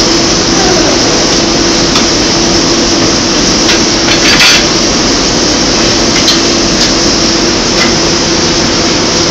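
Loud steady machinery noise with a constant hum, with scattered short metal knocks and clanks of tools and equipment being handled on a steel pipe; the loudest knock comes about four and a half seconds in.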